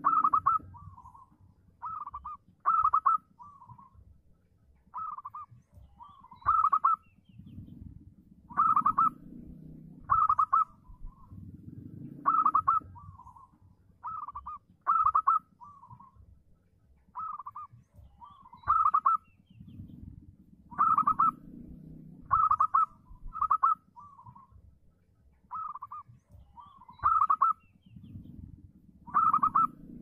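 Zebra dove (perkutut) singing its cooing song: short clipped notes in phrases of two or three, repeated every second or two.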